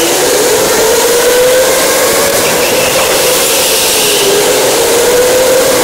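Go-kart motor whine rising in pitch as the kart speeds up, dipping about four seconds in as it slows, then rising again, over a loud steady rushing noise.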